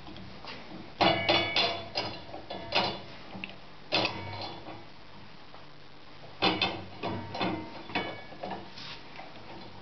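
Pneumatic sharpening machine for carbide-tipped circular saw blades cycling: two clusters of sharp metallic clacks and clicks that ring briefly, with a single one between them, over a low steady hum.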